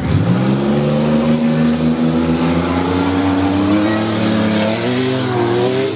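Dirt-track race car engines accelerating hard off the start, the engine pitch climbing steadily for about five seconds, then rising and falling near the end as the driver lifts and gets back on the throttle.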